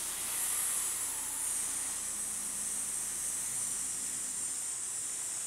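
A woman hissing like a snake on a long exhale, a steady high 'sss' held without a break.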